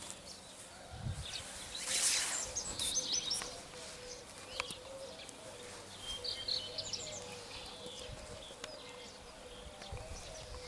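Songbirds chirping and whistling in short, scattered phrases, with a brief rustle about two seconds in and a faint steady hum underneath.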